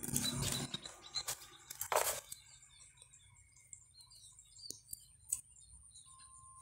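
Hands working sand and rocks in a shallow bonsai pot: a scraping rustle that fades in the first second, another short scrape about two seconds in, then small clicks and taps. Faint bird chirps can be heard in the background.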